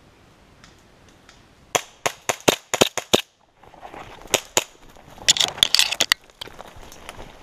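Airsoft gas blowback pistol firing rapidly: about eight sharp cracks in a second and a half. Then comes a rush of rustling through dry undergrowth, with a few more scattered cracks.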